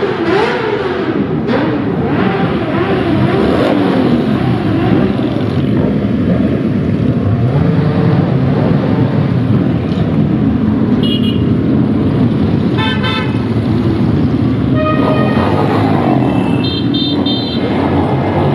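A procession of many motorcycles riding past, engines running together and revving in the first few seconds. From about ten seconds in, horns honk in several short blasts, then one longer one near the end.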